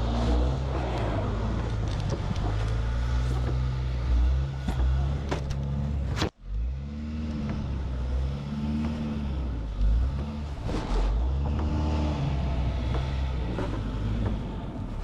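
Car engine revving in repeated rising and falling surges as a car stuck in snow tries to drive out, its wheels spinning. The sound cuts out briefly about six seconds in.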